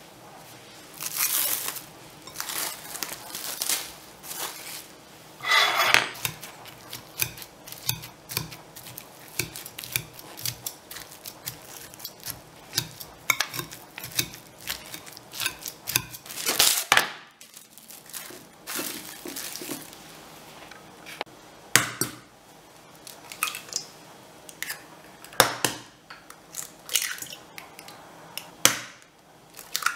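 Kitchen work on hard bowls: crinkling as plastic wrap comes off, then a wire potato masher clinking and scraping against a ceramic bowl as steamed pumpkin is mashed. Near the end, eggs are cracked into a stainless steel bowl. Sharp, irregular knocks and clicks throughout, with one ringing knock about six seconds in.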